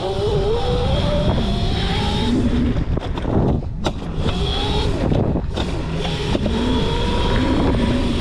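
Modified Razor MX650 electric dirt bike's 11,000-watt brushless motor whining as the bike accelerates, its pitch rising at the start and again about halfway through, with a steady high-pitched whine above and a low rumble beneath.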